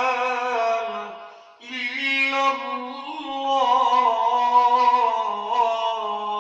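A man's voice singing an ibtihal, an Arabic Islamic devotional supplication, in long held notes with wavering ornaments. He breaks off briefly about a second and a half in, then sustains a long note.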